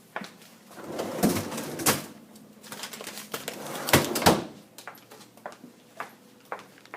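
Handling noises: a series of sharp clicks and two short stretches of rustling, in a small room.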